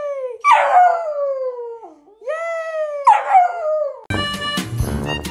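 A dog howling in long, drawn-out calls that slide down in pitch, some clear and some rough and louder, overlapping one another. About four seconds in, the howling cuts off and music starts abruptly.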